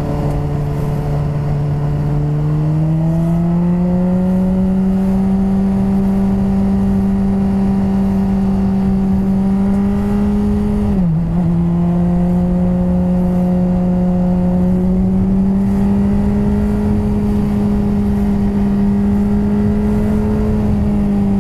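Honda CBR600RR inline-four sport bike engine with a Two Brothers aftermarket exhaust, under way at steady throttle with wind rush on the helmet camera. The pitch rises about three seconds in as the bike speeds up, drops sharply about eleven seconds in at an upshift, then climbs slowly again.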